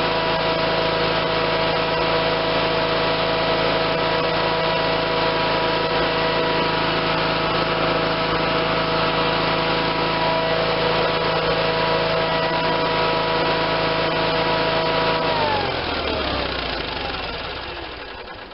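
Case Ingersoll 448 garden tractor's Onan twin-cylinder engine running at a steady speed, then shut off about fifteen seconds in, its pitch falling as it runs down to a stop.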